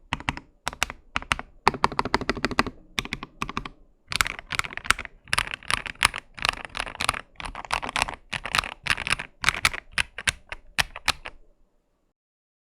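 Typing on a Lychee G80 mechanical keyboard fitted with KTT Rose switches: key presses in quick runs with short pauses, stopping near the end.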